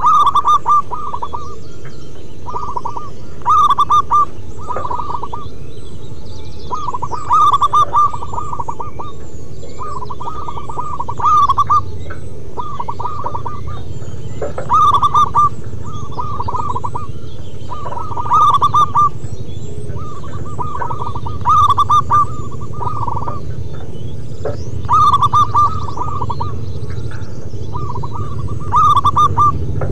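Zebra doves (perkutut) singing their staccato cooing phrases, with a loud phrase about every three and a half seconds and softer phrases between. A steady low rumble runs underneath.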